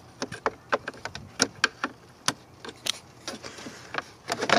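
Flathead screwdriver prying at a small plastic tab in a BMW E46's plastic fan shroud: irregular sharp clicks and taps of metal on plastic, a few a second, with a louder click near the end.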